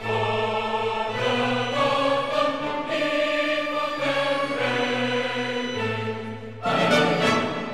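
Slow background music of long held chords, changing about once a second, with a louder, fuller passage starting near the end.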